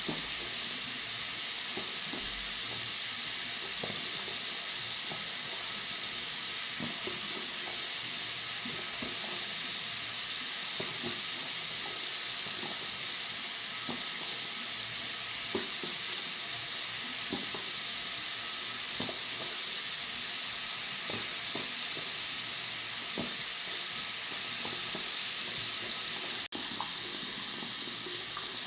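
Tap water running steadily into a bathroom sink: an even, hissing rush with small splashes ticking through it. Near the end there is a split-second break with a click.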